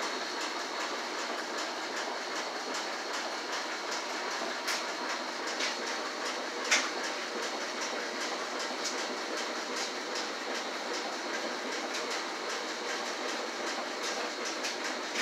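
Steady machine-like background noise with a faint high whine, broken by a few light clicks; the loudest click comes about seven seconds in.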